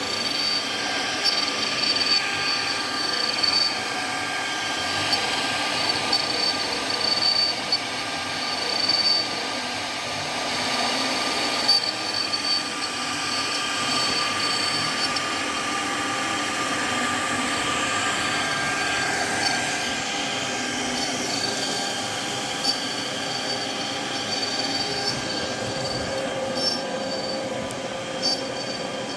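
CNC router running, a steady high-pitched metallic squeal with several held tones that come and go over a noisy wash.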